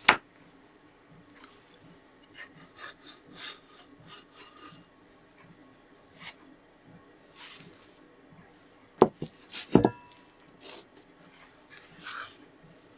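Parts of an antique Edward Preston wooden jack plane being handled and set down: light wooden taps and rubbing, with a sharp knock at the start. About nine to ten seconds in, a quick cluster of loud sharp knocks as the steel plane iron and cap iron are laid down on the bench, the last one ringing briefly.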